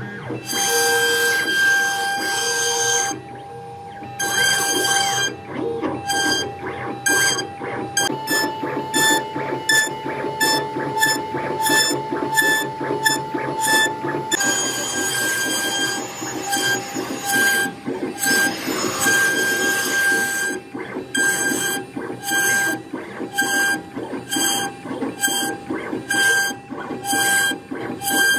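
CNC router spindle whining steadily while its bit carves a relief pattern into a board, the cutting noise coming and going in quick repeated bursts as the head traces the design. About a third of the way in, the whine steps up a little in pitch for several seconds, then drops back.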